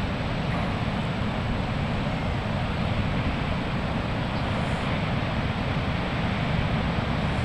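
Steady wind noise buffeting the microphone over the constant wash of breaking surf.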